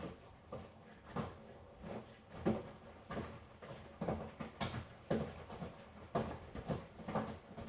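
Miele washing machine running its wash cycle: the drum turns and the laundry tumbles, giving soft irregular thuds about twice a second over a low steady hum.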